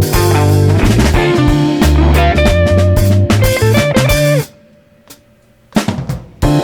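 Rock band music with electric guitar, bass and drum kit; the band cuts out for about a second and a half near the end, then a few drum hits bring it back.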